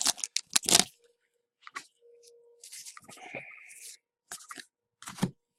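Trading cards and a foil pack wrapper being handled: scattered short crinkles, rustles and card flicks with gaps between them.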